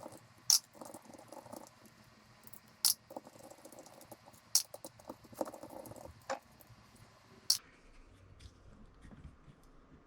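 Screwdriver working the four screws out of a carburetor's top cover: faint scraping and rattling of small metal parts, with about five sharp clicks spread through.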